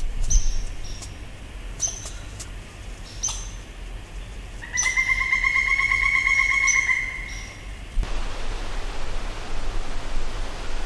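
Bird calls: a few short high chirps, then a clear pulsed trill lasting about two seconds. About eight seconds in, a steady hiss takes over.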